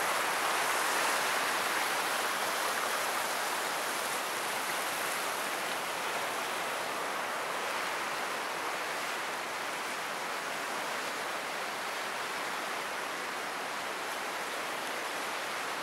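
Fast-flowing Buna river rushing over rapids, a steady hiss of churning water that eases slightly after the first few seconds.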